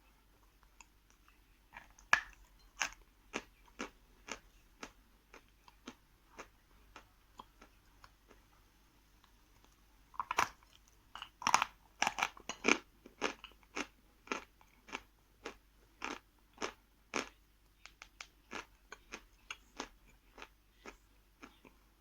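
A person biting and chewing a hard piece of edible chalk close to the microphone: crisp crunches about two a second, in two bouts, with fresh hard bites about ten seconds in.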